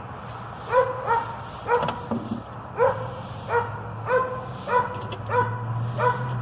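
A dog barking repeatedly in short, high yappy barks, about nine in a row at a steady pace, over a faint low steady hum.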